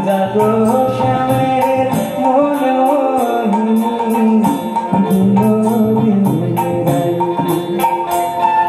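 Live music: a man singing into a microphone over a steady drum beat.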